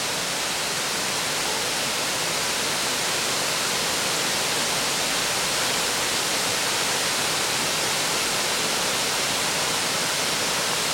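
Waterfall: a steady, even rush of white water pouring over a rock ledge.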